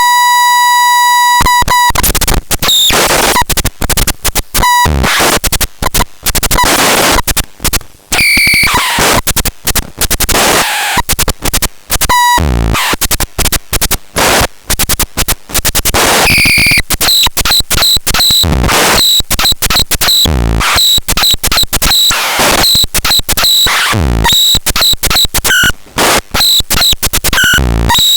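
Harsh electronic noise played loud: a buzzing tone with many overtones for the first second or so, then dense static chopped into rapid stuttering bursts, with short high squeals cutting in again and again.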